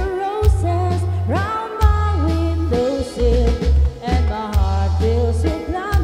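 Live band playing a waltz: a woman's voice singing the melody through a microphone over electric bass, drum kit and keyboard, with a steady beat of drum hits and held bass notes that change about once a second.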